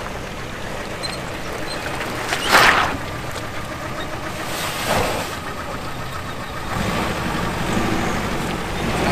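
Compact SUV engine running as it reverses a boat trailer down a launch ramp into the water, getting louder about seven seconds in. Two brief whooshing noises, the first about two and a half seconds in and the loudest, the second about five seconds in.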